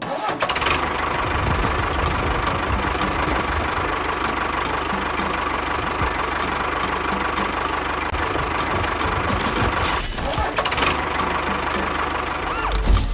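Small motor running steadily with a knocking rattle, typical of a miniature DIY tractor or bulldozer at work; it cuts off abruptly at the very end.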